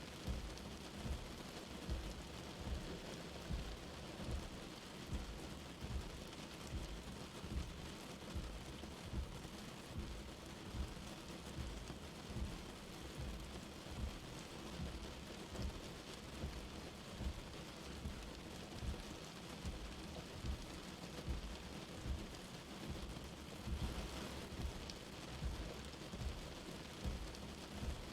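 Steady light rain falling with an even hiss. Under it runs a soft low thud that repeats about once a second.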